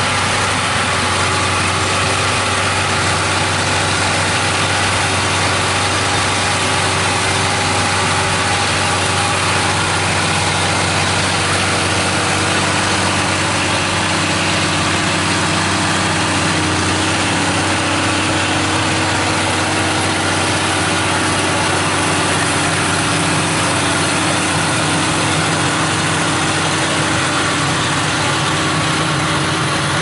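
Versatile 2180 tractor's diesel engine running steadily while it pulls a four-row potato digger through the field.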